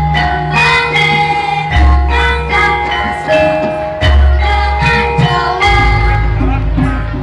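Javanese gamelan ensemble playing: bronze metallophones struck in a steady run of ringing notes over deep gong strokes that sound about every two seconds.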